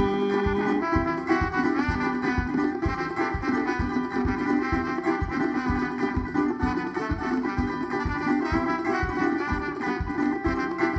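Instrumental passage of a band's song with no singing: steady low drum beats, about three a second, under melodic instruments.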